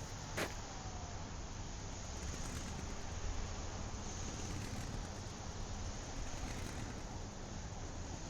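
Steady rushing noise with a low rumble, with a sharp click about half a second in.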